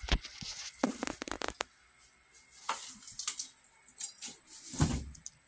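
Scattered clicks and knocks of handling, with one louder thump near the end.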